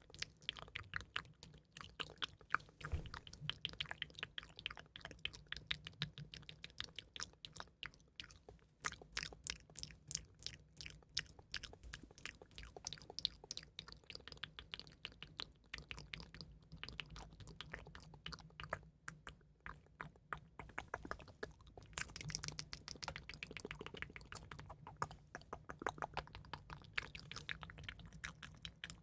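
Close-miked crisp clicking and crackling, many small quick clicks a second, with a couple of short lulls.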